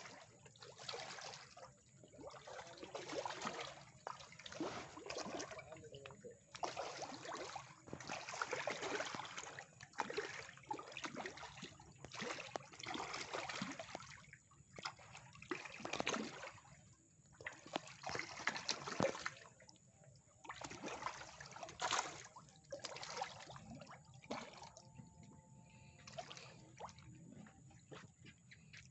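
Caged tilapia splashing at the water surface, in irregular bursts with short lulls between them.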